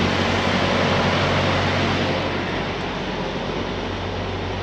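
Semi-truck's diesel engine running, heard from inside the cab as a steady low hum under an even hiss. It eases a little about halfway through.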